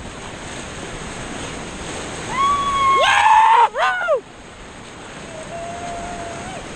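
Whitewater rapids rushing and splashing around a kayak. About two and a half seconds in, a kayaker lets out a few loud whooping yells that last for about two seconds.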